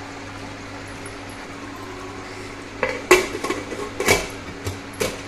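Metal clanks and clicks of a pressure cooker's lid and whistle weight being set in place: a handful of sharp knocks beginning about three seconds in, over a steady low hum.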